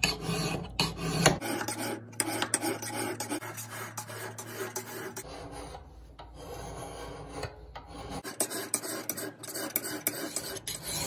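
Hand metal file being pushed in repeated strokes across the steel cheeks of an axe head, thinning them to reshape the grind.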